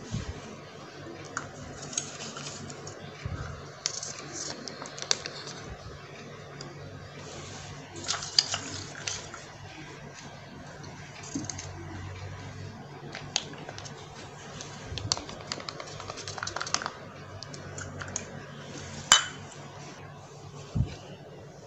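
Hands handling a small clear plastic cup on a laminated paper sheet: scattered light clicks, taps and rustles, with one sharper click near the end.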